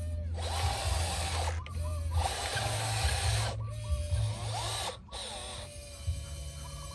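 Small electric motors of radio-controlled construction models whining, their pitch rising and falling as they are worked, over a steady low hum. The sound drops out briefly three times.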